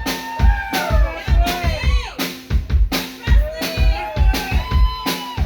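Rock band playing live: a drum kit keeps a steady beat of bass drum and snare hits, about two a second, under a singer's voice.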